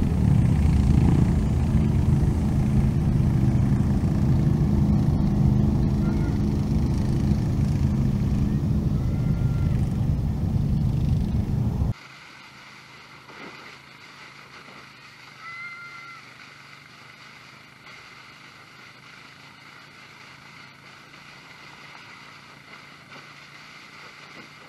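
Four-wheeler ride: a loud, low, rushing rumble for about twelve seconds, then a sudden cut to a much quieter steady hum with a few faint short chirps.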